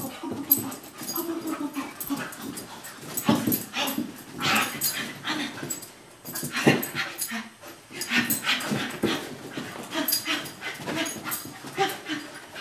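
Australian Cattle Dog mix making excited play vocalisations, a run of short irregular bursts.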